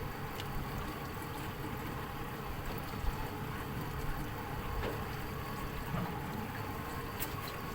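Fishing boat's motor running steadily, with water and wind noise around it and a few faint clicks.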